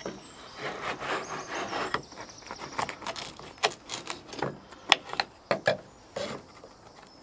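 Knife sawing through a baked calzone ring and knocking on the wooden pizza peel beneath: a run of rough sawing strokes, then several sharp knocks on the wood.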